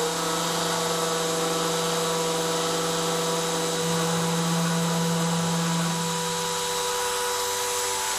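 CNC router spindle running at a steady speed while engraving a beech board: a steady whine of several tones over a hiss.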